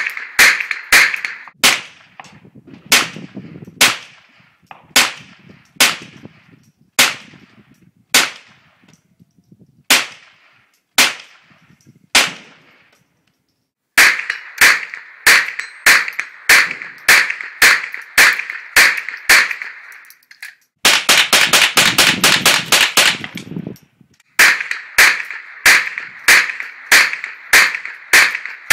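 GSG-5 .22 LR semi-automatic rifle firing strings of sharp shots, each with a short echo. The shots come about one a second at first, then about two a second, with a very fast run of shots about two-thirds of the way through and two brief pauses between strings.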